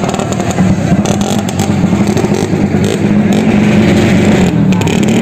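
Drag-racing vehicle engine running hard at steady high revs, its pitch dipping briefly and climbing back near the end.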